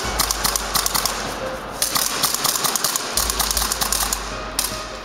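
Airsoft guns firing rapid full-auto bursts, a long run of sharp clacking shots broken by short pauses.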